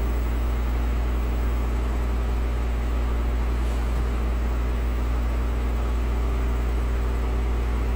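A steady low hum over an even hiss, unchanging throughout, with no distinct knocks or voices.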